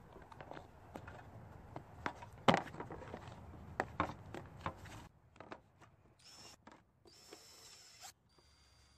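Clicks and knocks from the generator's plastic side panel being handled and fitted, the loudest about two and a half seconds in. Then a cordless drill-driver whirrs in two short bursts, driving the panel screws home.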